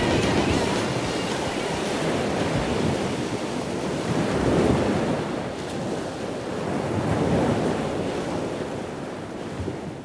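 A steady rushing wash of noise like surf or wind, swelling about halfway through and again a little later, then fading out at the end.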